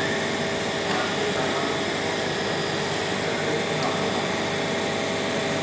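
Steady mechanical hum and hiss, with a few faint steady tones running through it.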